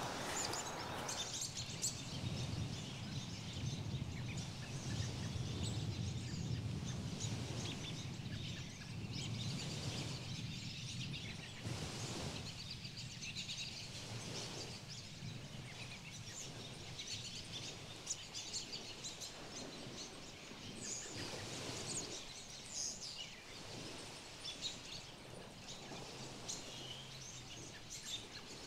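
Outdoor ambience: a low steady rumble with scattered small-bird chirps over it.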